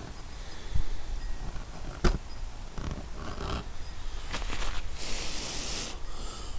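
A person blowing a long breath into a smouldering tinder nest to bring the ember to flame, after a couple of knocks and rustles from handling the bundle.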